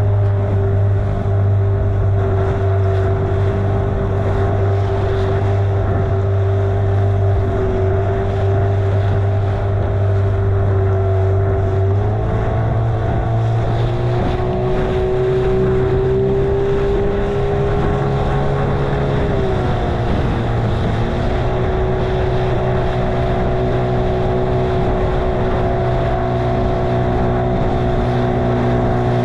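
Small boat's outboard motor running steadily under way. Its note rises slightly about twelve seconds in and dips and wavers briefly near twenty seconds.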